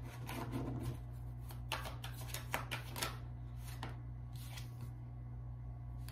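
Tarot deck shuffled by hand: a quick run of papery card flicks in the first second, then a few separate card snaps as cards are drawn and dealt onto the table.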